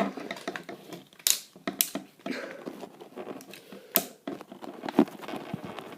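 Plastic parts of a Transformers toy being handled and forced together at a stiff, tight joint: rustling and scraping with several sharp plastic clicks and knocks.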